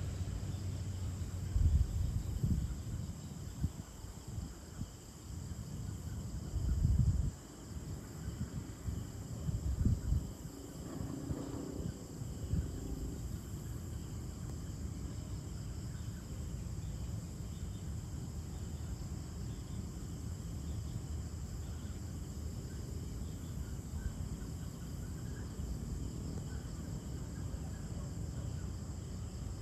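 Evening chorus of crickets and other insects, a steady high trilling. A few louder low rumbles come and go in the first ten seconds or so.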